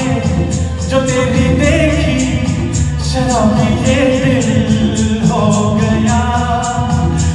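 A man singing a Hindi film song into a microphone, live over instrumental accompaniment with a steady percussion beat. He holds long notes with vibrato and glides between pitches.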